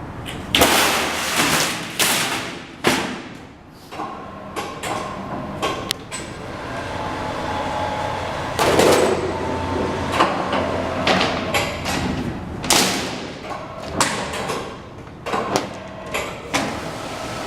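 Schechtl MAB310 CNC sheet-metal folder bending a piece of coping: a run of irregular clanks and thumps, some with a short metallic ring, as the machine clamps and folds the sheet.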